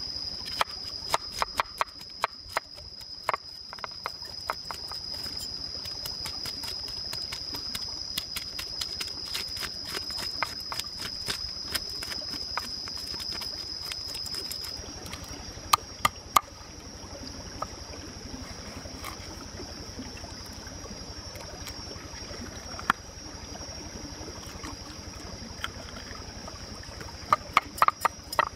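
A knife scraping scales off a raw fish: quick runs of sharp scraping clicks as the blade strokes along the body, with a few louder knocks of the blade. A steady high-pitched hum runs behind it.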